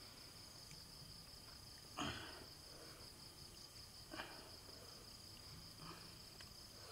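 Crickets chirping steadily in a fast pulsing trill, with a few short soft handling noises from limes being squeezed by hand and the halves set down on a wooden board, the loudest about two seconds in.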